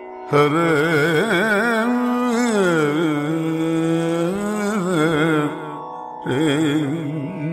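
Solo voice singing a devotional verse recitation in Carnatic style, with ornamented, wavering notes and long held tones. It breaks off about five and a half seconds in and picks up again about a second later.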